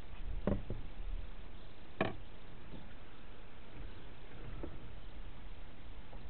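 Steady low rumble of wind on the microphone aboard a small sailboat, with a few short knocks: two about half a second in, a sharper one at two seconds and a faint one near the end.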